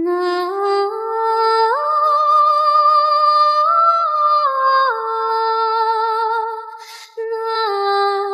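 A slow wordless melody hummed in a woman's pitch range, with long held notes that slide from one pitch to the next. About seven seconds in it breaks off briefly with a short breath before going on.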